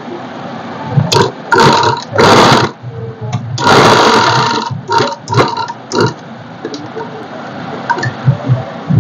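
Industrial sewing machine stitching a zip seam in a series of short runs, the longest about a second, stopping about six seconds in.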